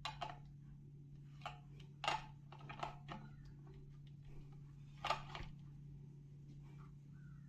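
Irregular clicks and taps of a small plastic appliance and its packaging being handled, loudest about two and five seconds in, over a steady low hum.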